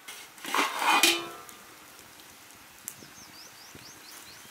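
Pot lid being put on a cooking pot: a brief clatter with a ringing tone, about half a second to a second in, covering the mutton so it simmers in its water.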